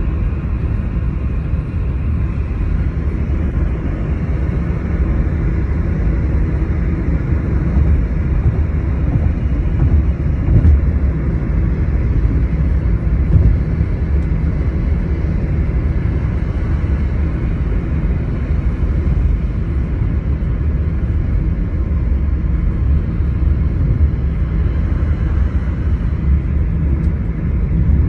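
Road and engine noise heard inside a moving vehicle's cabin: a steady low rumble that swells a little now and then.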